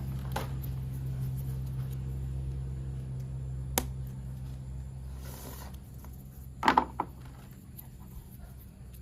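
Small electric motor of a battery toy train humming steadily and slowly fading. A sharp click comes about four seconds in, and a quick pair of clacks near seven seconds.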